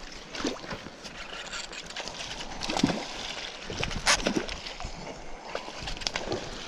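Steady rush of river current with a few sharp splashes, the loudest about three and four seconds in, as a hooked steelhead thrashes at the surface.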